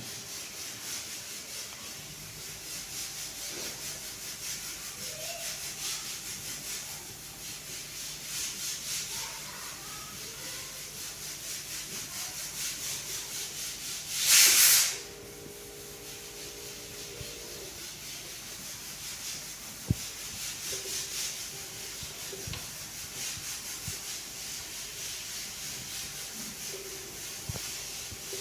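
Washing machine running: a rhythmic swishing over a low steady hum, with a brief loud rush of hiss about halfway through and a few faint clicks.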